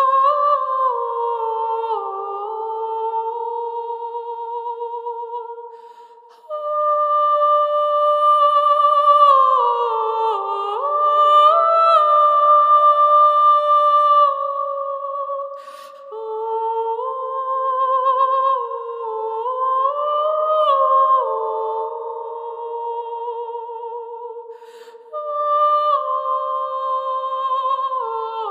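Slow, gentle background music: a melody of long held notes with vibrato over a second sustained line, pausing briefly between phrases.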